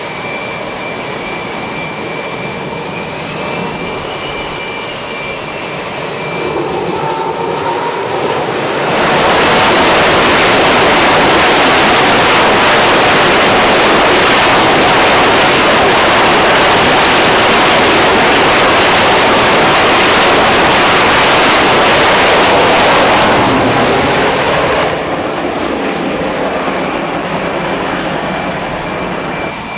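F/A-18 fighter's twin jet engines running on a carrier catapult with a high whine, then spooling up about seven seconds in to a loud, steady full-power roar for the catapult launch. The roar falls away sharply about 24 seconds in as the jet leaves the deck, leaving the lower whine of other jets.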